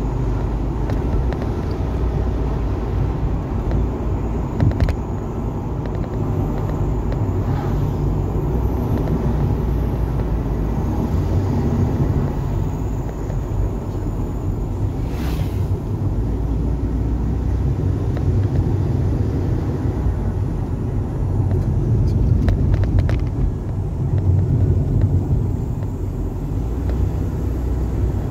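Car driving, heard from inside the cabin: a steady low engine and road rumble, with a few brief clicks and a short hiss about halfway through.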